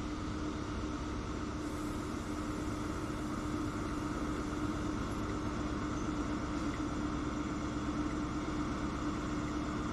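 Diesel train engine running with a steady drone and a constant hum.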